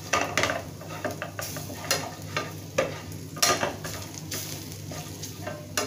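Metal spatula stirring and scraping a metal frying pan as a spice paste sautés in hot oil: a light sizzle with irregular clicks and scrapes of metal on metal.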